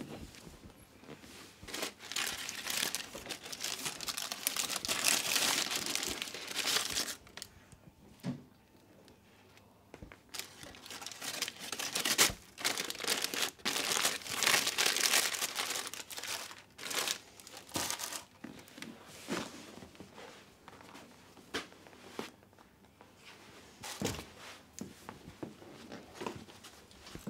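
A snack packet crinkling as it is handled and pulled open, in two long spells of several seconds, then shorter rustles.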